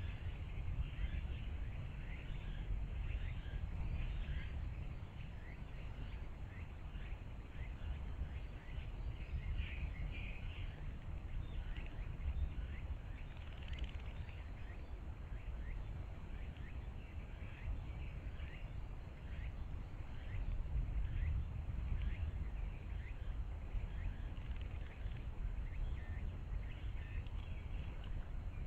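A bird bathing in a shallow pool, splashing and fluttering its wings in the water in many small, irregular splashes, over a steady low rumble.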